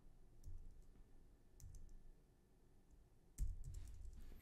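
A few faint computer keyboard keystrokes and clicks as a hex colour code is typed in, then a louder low rumble about three and a half seconds in.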